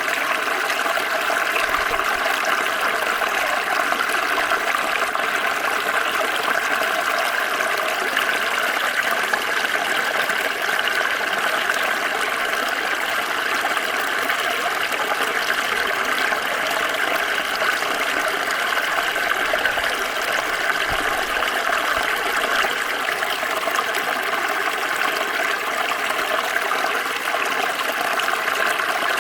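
Water flowing steadily over rocks in a small stream, a continuous babbling trickle.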